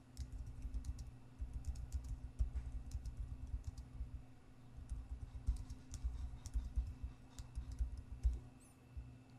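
Typing on a computer keyboard: a quick run of keystrokes with a short pause about halfway through, stopping near the end. A faint steady hum runs underneath.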